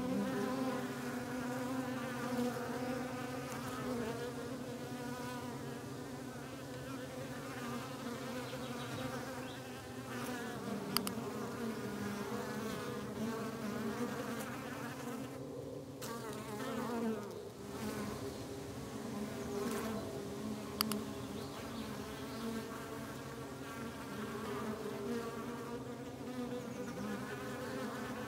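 Honeybees buzzing: a steady, wavering hum of several bees at once. Three sharp short clicks about ten seconds apart.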